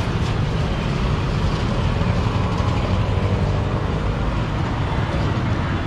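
Street ambience: a steady low rumble of road traffic, with no single sound standing out.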